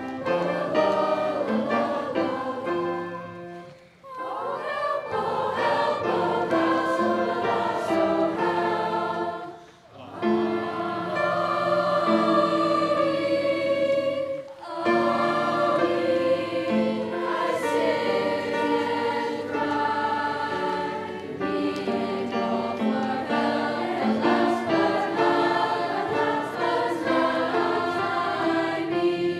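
A large mixed junior high choir singing in parts, holding sustained chords across several phrases. There are brief pauses between phrases about four, ten and fifteen seconds in.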